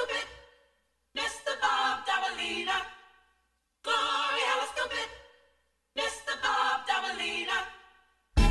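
Background music: unaccompanied sung vocal phrases with no beat, three of them, each fading out into a short silence, before the full beat comes back in near the end.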